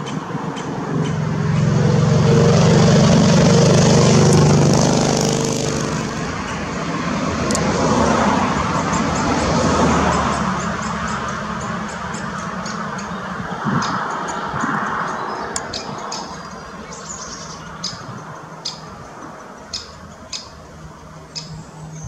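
Rumble of passing motor traffic that swells loud in the first few seconds, rises again around eight to ten seconds, then fades. Short, sharp bird calls repeat toward the end.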